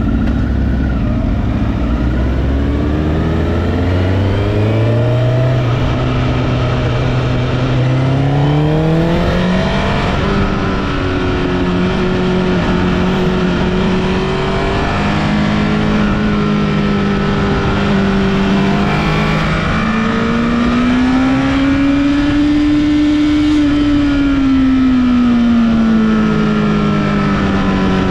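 Honda CBR1000RR (SC77) inline-four sport-bike engine under way, its pitch climbing steadily for about the first nine seconds as the bike accelerates, then rising and falling with the throttle. A steady rush of wind and road noise runs underneath.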